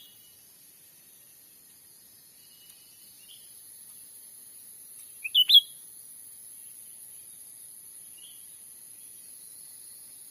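Cucak ranting calling: one sharp burst of three quick rising notes about halfway through, with a few faint short notes around it. Behind it runs a steady high-pitched insect drone.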